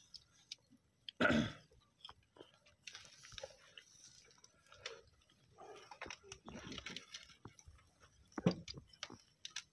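Quiet, irregular clicks and crackles at a charcoal grill as skewers of tikka boti are turned over the coals, with two louder short bursts of noise, one about a second in and one near the end.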